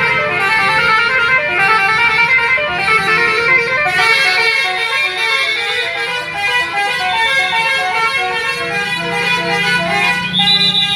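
Tour bus's 'telolet basuri' musical horn playing a quick melody, note after note, with a high held tone coming in near the end.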